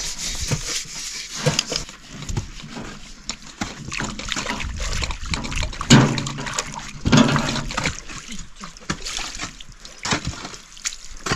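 Water splashing and sloshing, with scattered knocks and clatter throughout.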